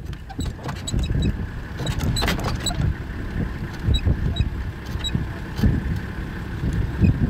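Safari vehicle's engine running with a low rumble, with scattered light clicks over it.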